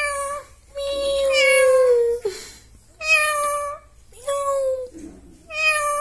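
Pet ringneck parrot giving five drawn-out, pitched calls in a row, the second lasting about a second and a half and dropping slightly in pitch at its end.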